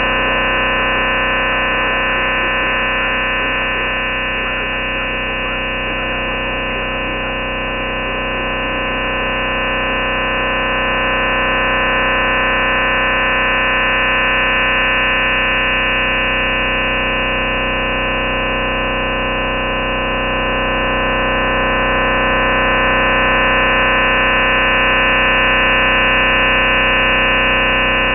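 Chinese shortwave noise jammer heard through a shortwave receiver: a steady, dense chord of many fixed tones over hiss, cut off above about 3 kHz, slowly swelling and fading in strength. It is the jamming signal laid over the Sound of Hope broadcast to drown it out.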